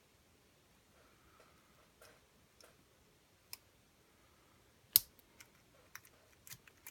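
Lock pick and tension wrench working the pins of a pin-tumbler challenge lock: scattered faint clicks, then one sharp louder click about five seconds in, followed by a few more clicks near the end.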